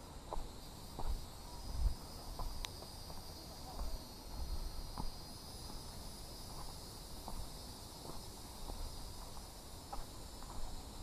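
Footsteps of a hiker walking on a rocky dirt trail, a soft thud about every three-quarters of a second with small scuffs and ticks of grit underfoot. A steady high buzz of insects runs beneath.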